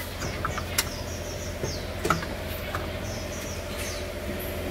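Small birds chirping in quick short calls, over a steady low hum, with a few sharp clicks and knocks from handling under the hood.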